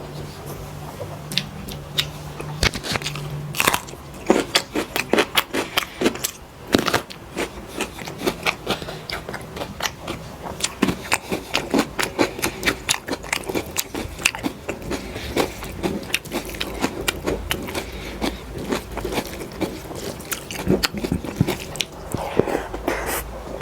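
A person eating close to the microphone, chewing and crunching through a meal of dal rice, fried potatoes and chilli: a quick run of bites, crunches and mouth clicks, several a second.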